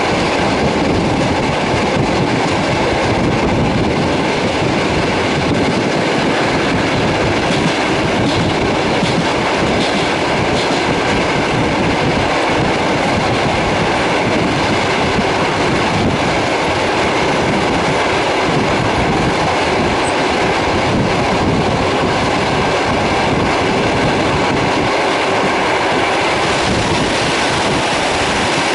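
Passenger train running steadily along the track, heard from on board: a continuous rumble of wheels on rail.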